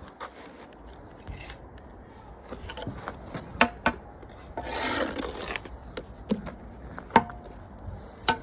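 Block-laying work with a mason's trowel: a few sharp metal taps, some with a brief ring, and a stretch of scraping mortar about five seconds in.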